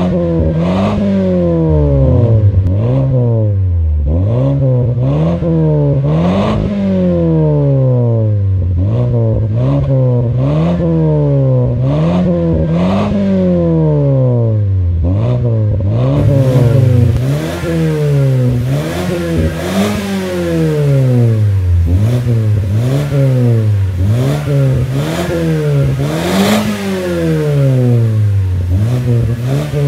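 2016 Mazda 3's engine free-revving in park through an aftermarket catback exhaust with dual tips: repeated quick throttle blips, each climbing to around 4,000 rpm and dropping straight back, one every second and a half or so.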